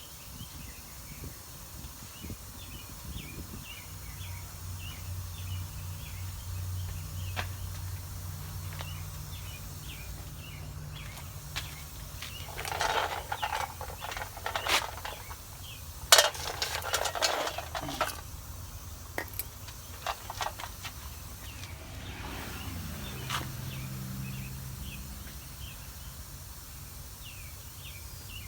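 Metal clinks and rattles of hand tools and hardware while a shock absorber's bottom bolt and nut are being fitted, loudest about halfway through. Birds or insects chirp steadily behind it, with a low hum coming and going.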